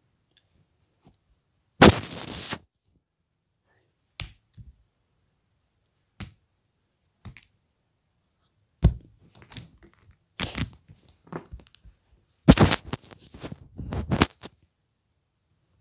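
Plastic toy figures handled and knocked about close to the microphone: irregular thunks, clacks and short scrapes. A loud thunk with a brief scrape comes about two seconds in, then scattered single knocks, and two busier runs of knocking and rustling in the second half.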